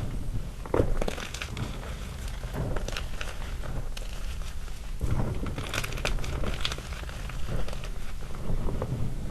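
Small chunks of gym chalk being crushed by hand in loose chalk powder: irregular soft crunching with scattered small snaps and crackles, and a sharper snap about a second in.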